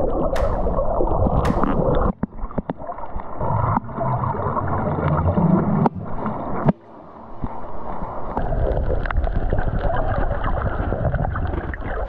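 Underwater sound from a GoPro in its waterproof housing while snorkelling: muffled water rushing and gurgling, dull and without any high tones, cutting out briefly twice.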